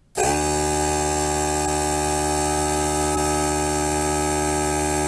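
A 3-gallon pancake air compressor starting up abruptly just after the start and running steadily with a loud, even hum; extremely noisy, obnoxious.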